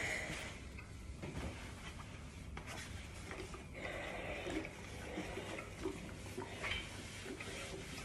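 A Philips steam iron rubbing back and forth over fabric, with a few light clicks and knocks from the iron and the cloth being handled.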